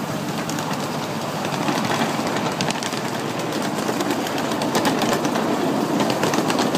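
A ride-on miniature railway train rolling along its track: a steady rumble from the wheels, with quick clicks and clacks as they pass over rail joints.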